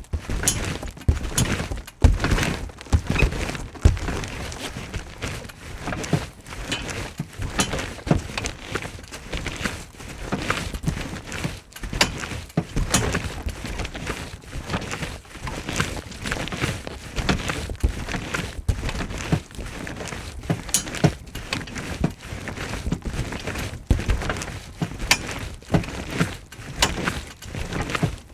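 Someone jumping on a trampoline: a run of repeated, irregular thumps as the jumper lands on and bounces off the bed.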